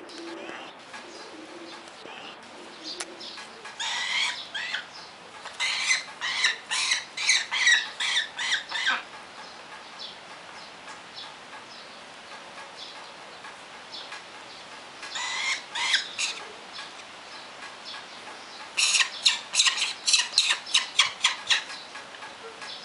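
Peregrine falcons calling in four bursts of rapid, harsh notes, about four a second, with wings flapping on the perch.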